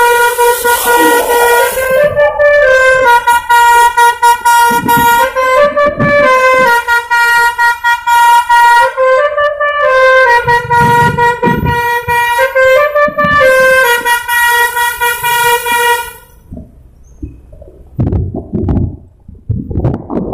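Basuri V3 telolet horn on an Abimanyu Trans bus, a multi-note musical air horn, playing a tune in loud held tones that step up and down in pitch. It stops about 16 seconds in, leaving only quieter low rumbles.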